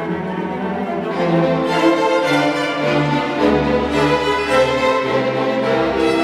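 A string orchestra of violins and cellos playing classical music, growing louder about a second in.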